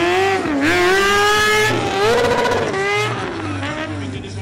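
Kawasaki sport-bike engine revved hard during a stunt routine, its pitch rising and falling several times, dipping about half a second in and dropping near the end, while the rear tyre spins and smokes on the tarmac.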